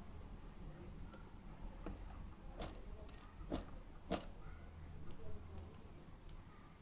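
A few sharp clicks and taps from inside a goldfinch's wire cage, four of them close together in the middle, over a low steady hum.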